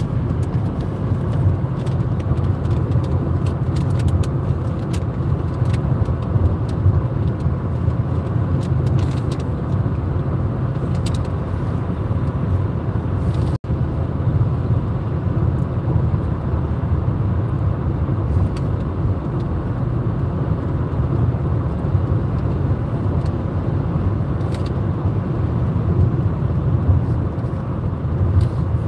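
Car driving at road speed, heard from inside the cabin: a steady low rumble of tyres and engine, which cuts out for an instant about halfway through.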